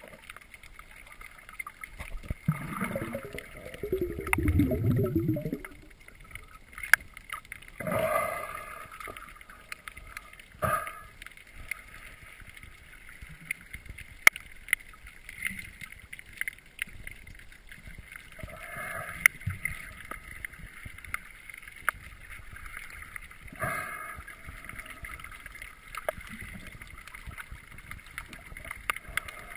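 Underwater sound picked up by a GoPro inside its waterproof housing: scattered sharp clicks and a few rushing bursts every several seconds. The loudest burst comes a few seconds in and falls in pitch.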